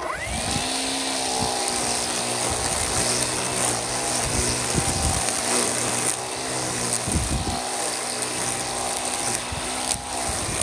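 Battery-powered EGO Power+ string trimmer starting up with a quick rising whine, then running steadily, its spinning line cutting grass, with a few brief dips in its sound.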